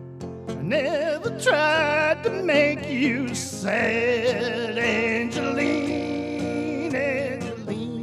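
Live acoustic guitar song: a singer holding long, wavering notes over steady guitar chords. The voice comes in about a second in, breaks briefly midway and trails off near the end.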